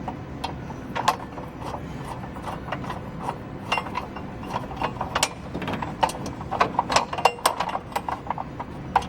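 Screwdriver backing out the small screws of a Kawneer push bar's side cover, giving an irregular run of small metal clicks and rattles that grows busier about six seconds in.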